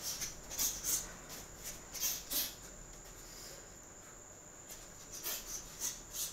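Quick, sharp hissing exhalations timed with shadowboxing punches. They come in bunches, with a pause of about two seconds in the middle while the boxer holds his guard, over a faint steady high whine.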